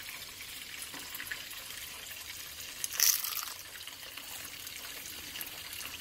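Oil sizzling in a frying pan, a steady crackling hiss, with a short louder crackle about three seconds in.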